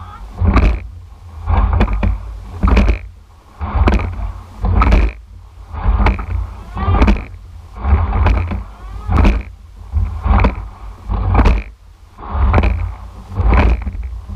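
Eight-oared racing shell rowing hard: a rhythmic surge of oars and oarlocks working and water rushing along the hull, pulsing about once a second, with heavy wind rumble on the rigger-mounted microphone.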